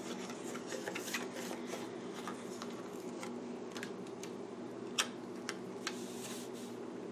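Paper sticker sheets being handled, with light crackling and small clicks as a sticker is picked off, the sharpest click about five seconds in, over a steady low hum.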